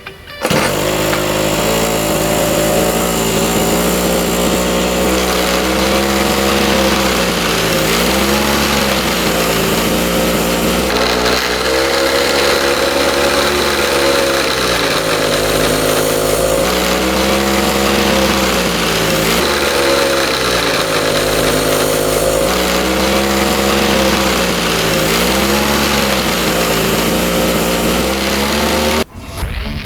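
Brush cutter engine running with its gear head freshly greased, the engine speed rising and falling every two to three seconds as the throttle is blipped. It cuts off suddenly near the end.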